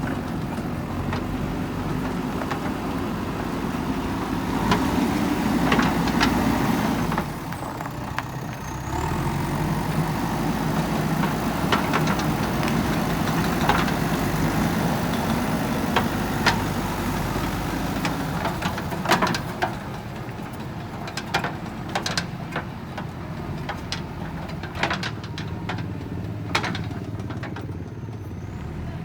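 JCB backhoe loader's diesel engine running and working under load, swelling from about four seconds in and easing off around seven seconds, then picking up again. Sharp knocks and clatters sound through it, those of the bucket working stones.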